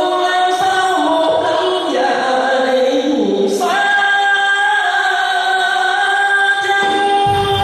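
A man singing a slow Vietnamese cổ nhạc (cải lương) vocal line into a microphone with little or no accompaniment: long drawn-out notes that step down in pitch, then rise to one long held note. Low instrumental accompaniment comes in near the end.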